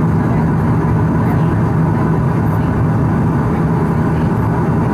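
Bombardier Q400 cabin noise on final approach: the steady low drone of the turboprop propellers with a rush of airflow, heard from a seat beside the extended main landing gear.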